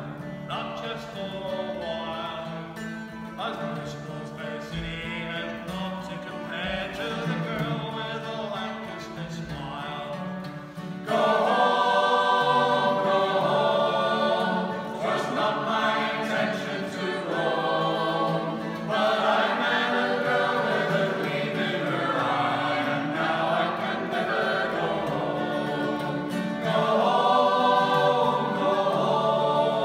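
A group of mainly male voices singing together in harmony to a strummed acoustic guitar. It is quieter for the first ten seconds or so, then the whole group comes in much louder about eleven seconds in.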